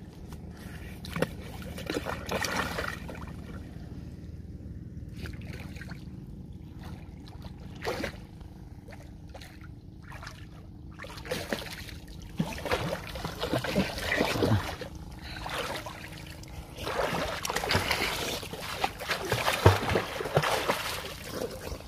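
Water splashing and sloshing as someone wades and gropes about in shallow pond water, in irregular bursts that grow louder about halfway through and again near the end.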